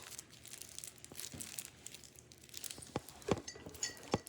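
Plastic crinkling as a homemade squishy is handled, with a few sharper clicks about three and four seconds in.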